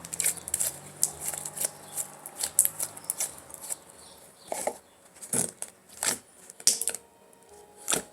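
Slime being squeezed and worked by hand, giving a run of small sticky clicks and pops. The clicks come thick and fast for the first few seconds, then thin out into a handful of louder, separate pops.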